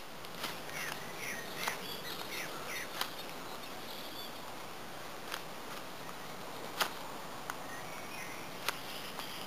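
Scandi-ground friction-folder knife carving wood for a spoon: irregular short, sharp cuts and snaps a second or two apart, over a steady outdoor hiss.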